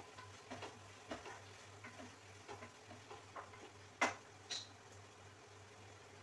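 A metal cooking utensil knocking and scraping against a pan as chicken is stirred, in irregular light clicks, then a sharp clank about four seconds in and a ringing metal clink half a second later.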